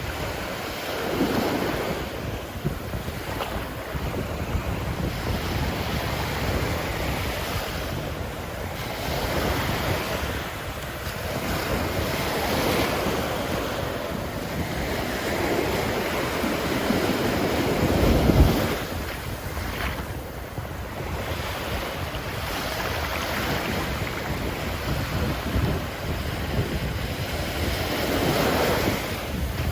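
Ocean surf breaking on a beach, one wave after another swelling and washing back every few seconds. The heaviest, deepest break comes about two-thirds of the way through.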